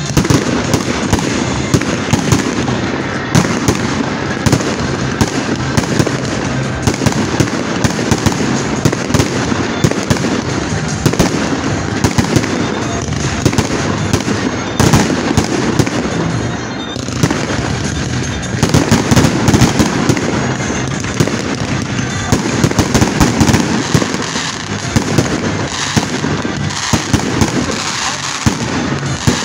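Fireworks going off in quick succession: a dense, unbroken run of sharp cracks and bangs.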